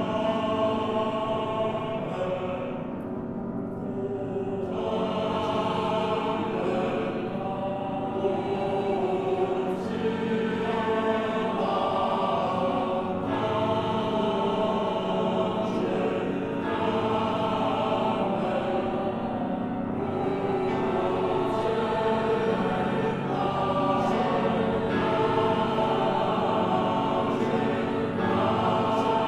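A choir singing a slow sacred choral piece in long, sustained chords that swell and shift from phrase to phrase.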